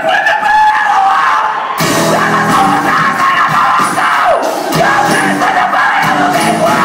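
Live rock band playing loud: a long yelled note rising in pitch, then the full band comes in about two seconds in with drums, bass and guitars under shouted vocals.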